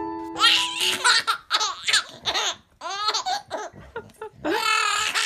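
A baby laughing hard in a run of short, high-pitched bursts, with a brief pause about halfway through. A few piano notes die away at the start.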